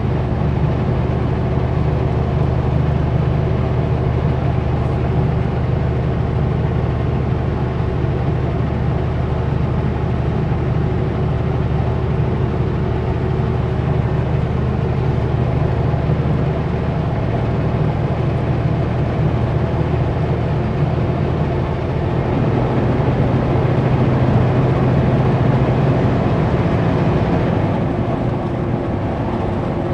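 Kenworth W900L semi truck's diesel engine running steadily while driving under a heavy load, with road noise. The drone swells slightly about two-thirds of the way through and eases near the end.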